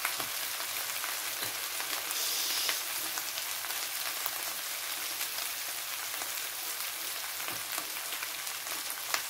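Diced potatoes and spices frying in oil in a pan, giving a steady sizzle with fine crackling and a brief louder hiss about two seconds in.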